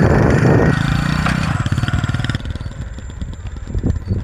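Honda Pridor 100 motorcycle's single-cylinder engine running as the bike rides off, loud and even at first. About two and a half seconds in it drops to a quieter, thinner sound.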